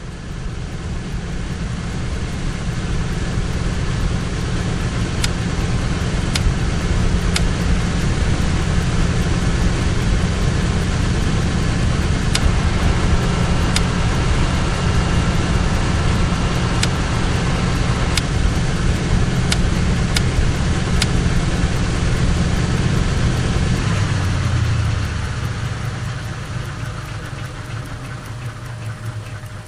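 Cabin drone of a Douglas DC-3's twin radial piston engines in flight: a steady, loud, low hum with a rushing noise over it and a few faint clicks. Near the end the drone eases off and gets quieter, its low note shifting.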